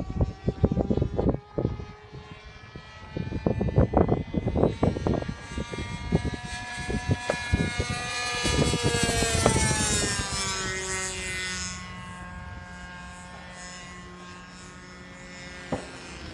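Radio-controlled model airplane engines droning as the planes fly by, the pitch dropping as one passes close about halfway through, then a steadier, lower engine tone. Irregular thumps on the microphone in the first few seconds.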